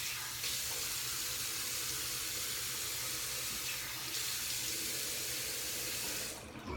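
Water tap running steadily into a sink while hands are washed under it; the flow shuts off near the end.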